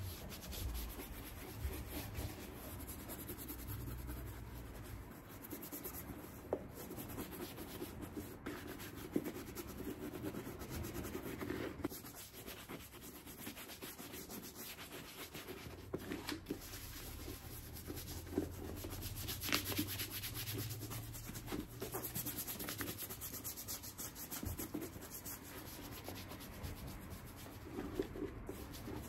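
Continuous rubbing and scraping on a boot under repair, quick hand strokes with a few small knocks, over a low steady hum.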